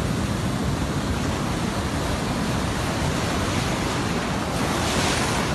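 Ocean surf washing and breaking in a steady rush, with a louder hiss of breaking water near the end.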